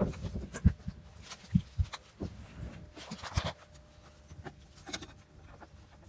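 Handling noise: scattered soft knocks and rustles as stuffed toys are moved about close to the microphone. The knocks are busiest in the first three and a half seconds and quieter after.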